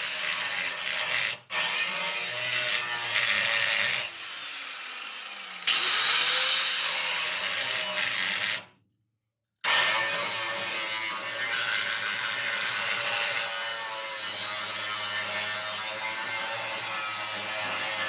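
Hand tools working on the truck's engine bay, with ratchet-like clicking and metal scraping. It comes in several short cut-together stretches, with a brief gap about a second and a half in and a second of silence near the middle.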